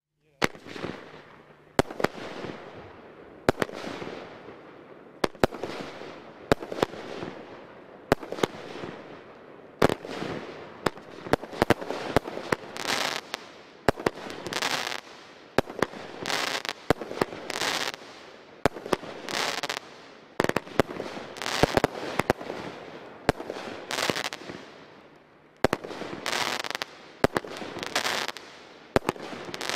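Lesli Zentax firework cake (a multi-shot battery) firing shot after shot: each sharp launch report is followed by the crackling, fizzing burst of its stars. The shots come about every one to two seconds at first and closer together in the second half.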